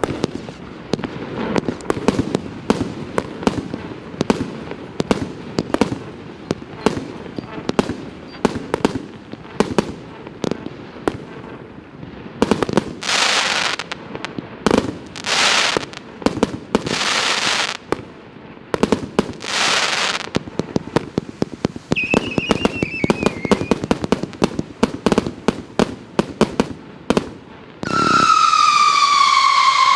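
Multi-calibre firework cake firing a rapid string of shots and bangs. Around the middle come four hissing bursts of about a second each, and near the end a loud whistling shot, falling in pitch for about two seconds.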